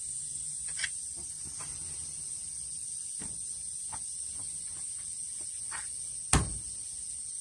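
Scattered light taps of hand tools working on wooden door trim, with one sharp, loud knock about six seconds in. A steady high-pitched insect drone runs underneath.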